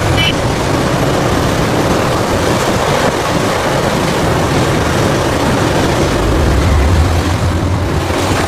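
Heavy diesel machinery engine running steadily under a loud rushing noise, its low drone growing stronger about six seconds in.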